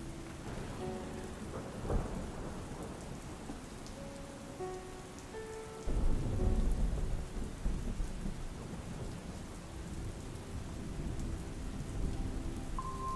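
Steady rain falling, with a short roll of thunder about 2 s in and a louder, deep rumble of thunder about 6 s in that fades over a few seconds. Soft sustained ambient music tones sound under the rain.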